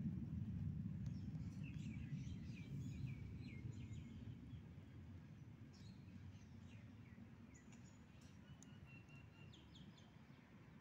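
Small birds chirping: a quick run of short chirps a couple of seconds in, then more scattered calls and a briefly held note near the end, over a low rumble of outdoor noise that gradually fades.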